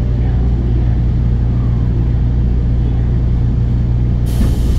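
Running noise of an Osaka Metro 22 series subway car heard from inside the car: a steady, loud low drone from the motors and wheels as the train slows. About four seconds in, a sudden hiss starts.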